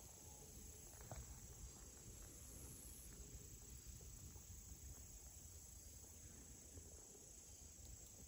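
Near silence: faint, steady high-pitched insect chirring in the background.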